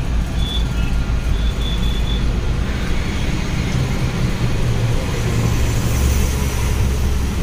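Bus engine and road noise heard from inside the passenger cabin: a steady, deep rumble that grows heavier over the last two seconds.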